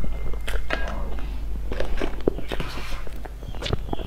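Close-miked mouth sounds of a person eating soft strawberry cream sponge cake: irregular wet smacks and clicks of chewing, over a steady low hum.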